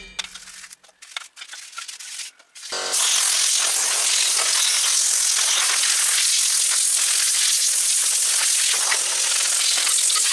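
Compressed-air blow gun hissing steadily as it blows off a bare flathead V8 engine block. The hiss starts about three seconds in and runs unbroken, with a few faint clicks of handling before it.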